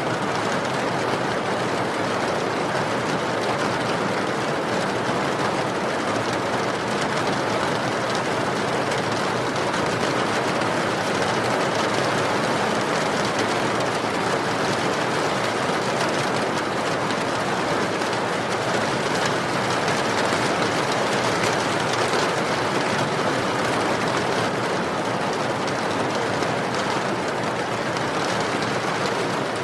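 Steady rain falling, an unbroken hiss of drops at an even level throughout.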